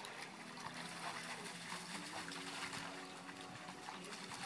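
Dogs running and splashing through shallow water pooled on a pool cover, their paws slapping the water in quick, irregular splashes.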